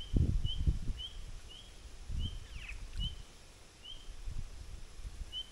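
A bird repeating a short, high chirp about twice a second, over low bumps and rumbling that are loudest in the first second.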